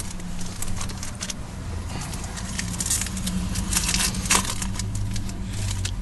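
Crinkling and crackling of a trading-card pack wrapper being torn open and the cards handled, a run of quick crackles with the sharpest snap about four seconds in, over a steady low hum.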